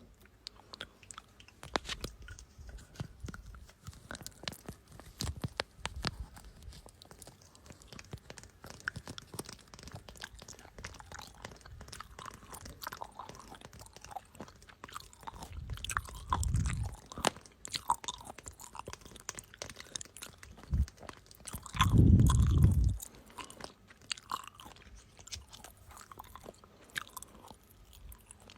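Close-miked ASMR trigger sounds: a dense run of small crunching clicks and crackles, with two louder, muffled low thuds about 16 and 22 seconds in.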